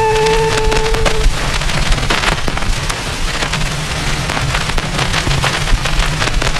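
A last held note dies away in about the first second, then a loud, dense crackling noise full of small clicks takes over, with a low rumble beneath it, as the song's outro effect.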